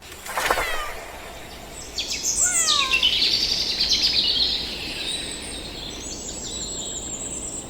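High-pitched animal squeals and chirps. A short falling cry comes near the start, then a louder run of shrill squealing from about two seconds in to four and a half, and faint high whistling chirps near the end.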